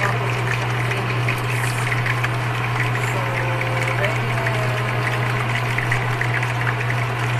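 Pandan-wrapped chicken frying in oil in a covered pan, sizzling with a dense crackle, over a steady low hum.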